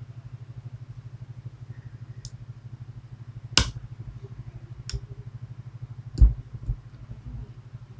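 Several sharp metallic clicks and taps of lock picks and tension tool working a Medeco Biaxial pin-tumbler lock, two of them louder, over a steady low hum.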